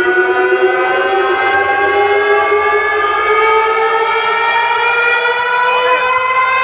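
A siren tone played loud through a carnival sound system, one long wail whose pitch climbs slowly and steadily, with a faint low bass underneath.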